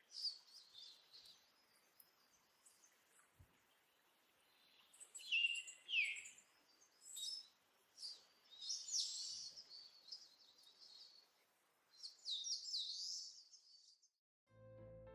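A songbird singing, faint: several separate bursts of high-pitched chirps and whistles with pauses between them, one phrase near the middle sweeping down in pitch.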